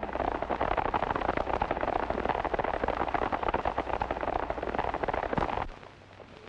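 Horses galloping: a loud, rapid clatter of hoofbeats from several horses, cut off suddenly near the end.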